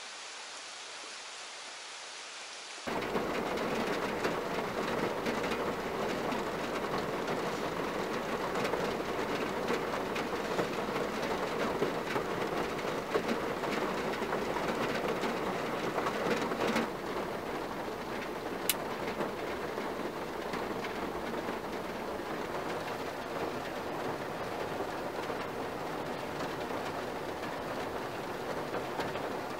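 Heavy rain falling steadily. After a cut about three seconds in, it grows louder: rain pattering on a car's roof and windows, heard from inside the cabin. It eases slightly after another cut partway through, and a single sharp click sounds shortly after.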